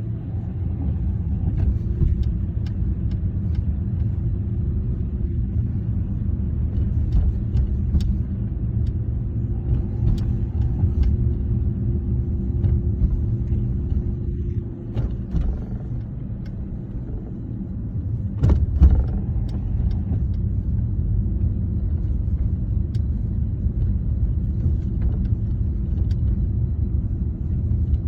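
A vehicle engine running steadily with a low rumble, with scattered light ticks and one louder knock about two-thirds of the way through.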